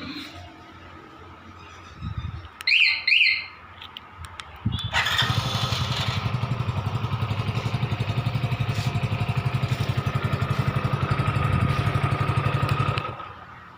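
Two quick chirps from a motorcycle anti-theft alarm, then the Hero Splendor Plus BS6's single-cylinder engine is started through the alarm's remote-start function. It idles steadily for about eight seconds and cuts off near the end.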